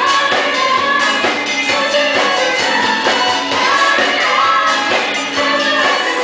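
A live band playing a song with lead vocals sung into microphones over drum kit, timbales and electric guitar.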